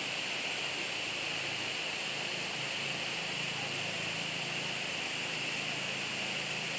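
Steady outdoor background hiss with no distinct events, over a faint low hum.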